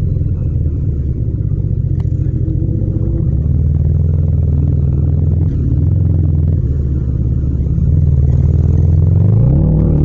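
Yamaha MT-07's 689 cc crossplane parallel-twin engine running steadily at low revs in slow traffic. Near the end it revs up in second gear as the bike accelerates, its pitch rising.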